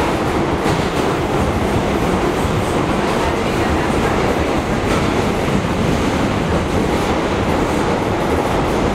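Ride noise of a Bombardier R179 subway car under way, heard from inside the car: a steady rumble of wheels on rail with occasional faint clicks.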